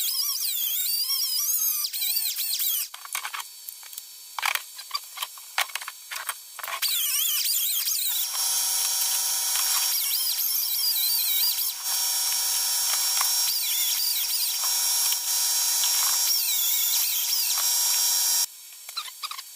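Small high-speed power tool grinding wood to open up a 1/4-inch jack hole in a thick cigar box top, its whine wavering in pitch under load. It runs, stops about three seconds in, gives several short bursts, then runs steadily from about eight seconds in until it cuts off shortly before the end.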